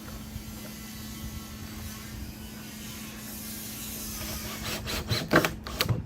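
Steady background hum with faint rubbing, then a quick run of knocks and clatter near the end, the loudest about five and a half seconds in.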